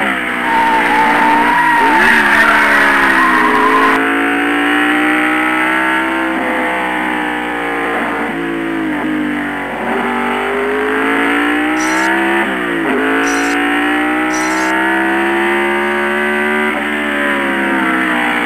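Race car engine sound effect revving up through the gears: the pitch climbs steadily and drops at each shift, again and again. Tyre squeal joins it in the first few seconds.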